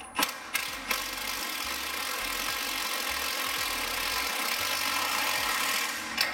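Power tool running steadily for about five seconds, driving in the mounting bolt of a new front lower control arm, after a few light knocks of the bolt being lined up. It stops shortly before the end.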